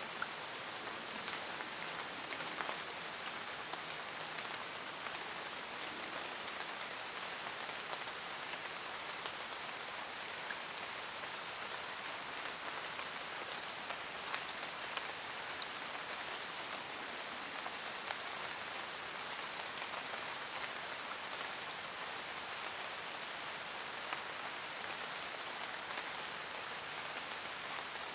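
Steady rain falling in a forest, a dense even hiss with many small scattered drop ticks.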